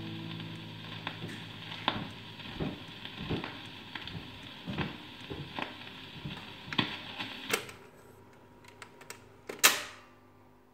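Astor record player's stylus tracking the run-out groove after the song has ended: surface hiss with a regular click about every 0.7 seconds. About seven seconds in, the hiss stops as the tonearm lifts, a few mechanism clicks follow, and then a sharp clack as the arm drops onto its rest, the loudest sound here.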